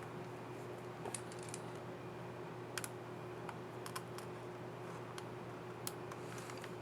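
Small, sharp plastic clicks at irregular intervals, with a quick cluster about a second in, from a Dell XPS 7590 laptop keycap and its scissor mechanism being fitted and pressed. A steady low hum runs underneath.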